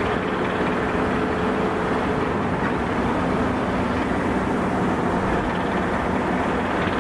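Steady low mechanical rumble with a faint hum over it, unchanging throughout; a higher hum note fades out a couple of seconds in.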